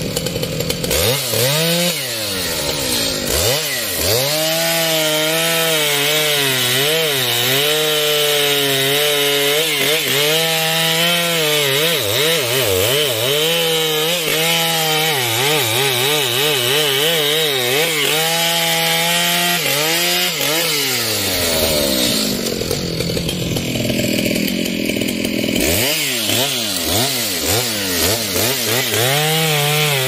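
Two-stroke Stihl chainsaw running at full throttle through a thick trembesi (rain tree) log, its engine pitch wavering as the chain bites into the wood. About two-thirds of the way through, the engine note sags and thins out for a few seconds, then it climbs back up and the cutting carries on.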